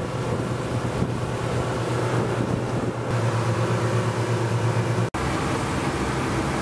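Twin 200-horsepower outboard motors pushing a fishing boat at speed: a steady engine drone mixed with wind buffeting the microphone and rushing water. The sound drops out for an instant about five seconds in.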